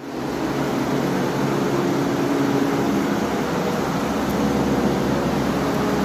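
Electric fan running steadily, an even rush of air with a low motor hum.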